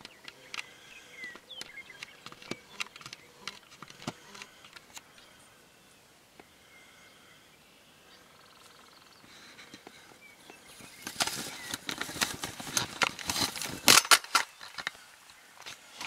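Handling noise of a camera being moved about inside a fabric hunting blind: scattered light clicks at first, then a few seconds of dense rustling and knocking near the end, the loudest part.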